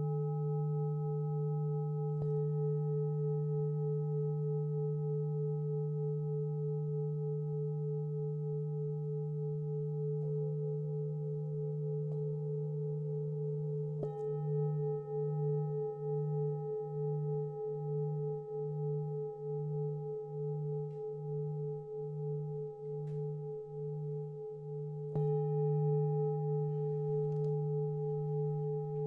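Singing bowls ringing in a long, steady, layered hum in which the low tone is loudest, struck afresh a few times. From about halfway the low hum swells and fades evenly, a little over once a second, until a firmer strike near the end.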